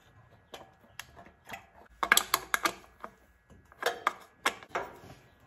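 Irregular small clicks and knocks in short clusters: the plastic air box being fitted back over the carburetor on a small generator engine, with its fasteners being done up by hand.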